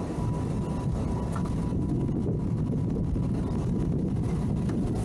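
Towboat's engines idling: a steady low rumble.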